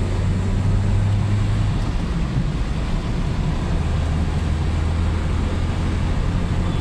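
Toyota Etios diesel car driven at speed, heard from inside the cabin: a steady low engine drone under road and tyre noise.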